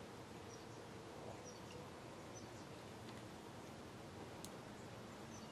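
Faint room tone with scattered short, high chirps of a distant small bird, and a single sharp click about four and a half seconds in.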